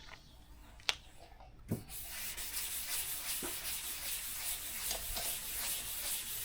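Sandpaper being rubbed across the painted surface of a hail-damaged car hood, a steady scratchy hiss that starts about two seconds in after a click and a knock. The hood is being scuffed lightly so that the dents show up.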